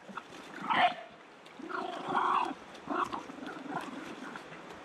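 A dog whining and yelping in a string of separate calls, the loudest about a second in.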